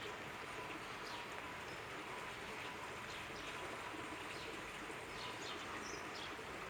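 Small birds chirping now and then in short, falling calls over a steady faint hiss.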